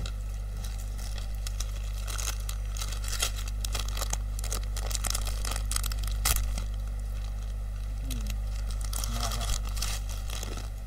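Crinkling plastic snack packet handled and torn at, making a dense run of irregular crackles that thins out about seven seconds in.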